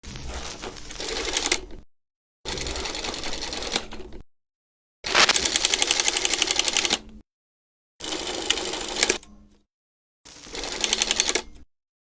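Rapid, even mechanical clatter of a film projector running, as a sound effect. It comes in five separate bursts of one to two seconds each, cut by dead silence.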